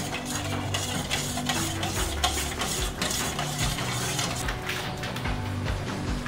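Metal teaspoon stirring liquid in a stainless steel bowl, clinking and scraping against the bowl in rapid, uneven taps.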